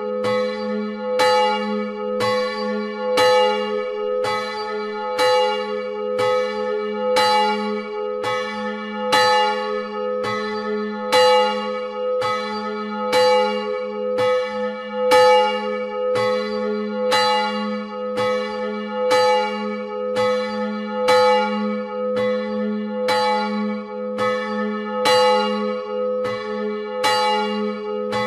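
Swinging church bells ringing, struck about once a second, with a steady humming tone sustained between the strokes.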